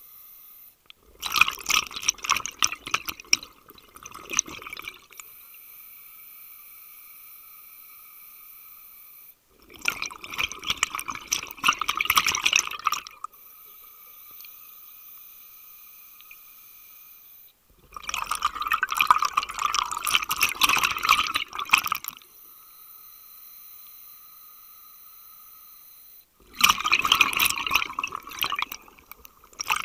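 Scuba diver's regulator exhaust: four bursts of exhaled bubbles gurgling and crackling past the mask, each about four seconds long and about eight seconds apart, in a steady breathing rhythm. A faint steady whine sits between the exhalations.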